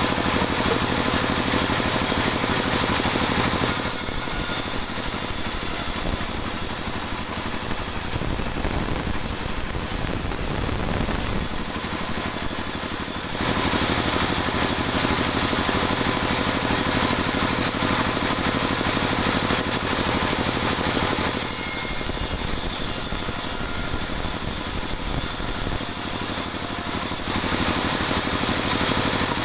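Band sawmill running steadily while sawing dry teak into 2 cm boards. A brighter, hissier cutting noise swells over the steady hum three times: for the first few seconds, through the middle, and near the end.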